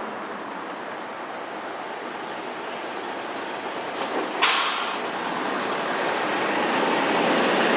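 Steady rumble of a heavy vehicle, with one short, loud hiss of released air about four and a half seconds in, typical of an air brake.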